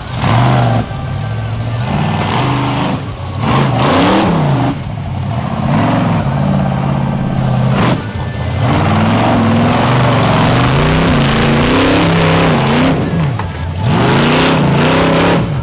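Rock bouncer's engine revving hard in repeated throttle bursts, its pitch rising and falling, with brief lifts off the throttle between bursts, typical of a buggy working its way up a technical rock hill climb.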